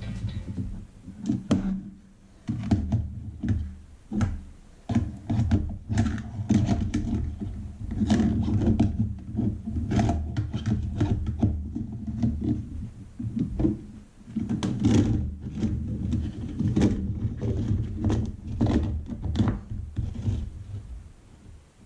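Irregular knocks, thuds and clatter of hard objects being handled and set down, with a low rumble between the strikes.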